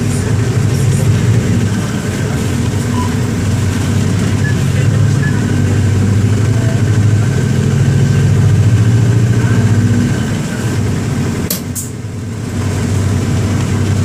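Mercedes-Benz OM-924 LA four-cylinder inline diesel engine of an OF-1721 BlueTec 5 bus running steadily under way, recorded aboard the bus; its drone swells and eases. About eleven seconds in it drops briefly, with two sharp clicks, then picks up again.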